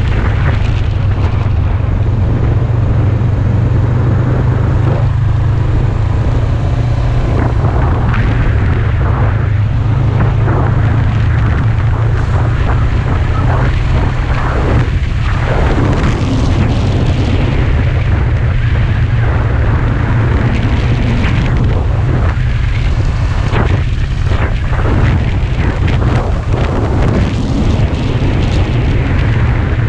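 Onboard sound of a sport motorcycle riding at speed: heavy wind rumble on the microphone over the steady running of the engine, with gusty swells in the wind noise.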